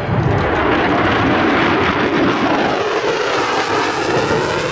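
Twin afterburning Pratt & Whitney F119 turbofans of an F-22 Raptor flying a demonstration pass: loud, steady jet noise with a slowly sweeping, phasing quality as the jet moves across.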